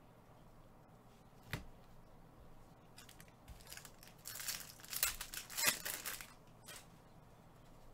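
Foil wrapper of a Panini Prizm jumbo trading-card pack being torn open and crinkled, in a run of crackling rips that is loudest a little past the middle. A single sharp tap comes about a second and a half in.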